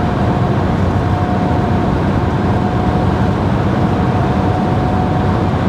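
Road noise inside a moving camper van: a steady rumble of tyres and engine, with a faint steady whine over it.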